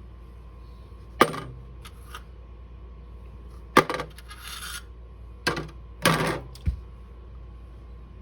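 Metal shotgun parts clinking and clanking as they are handled during disassembly: a handful of sharp metallic knocks a second or two apart, with a duller low knock near the end.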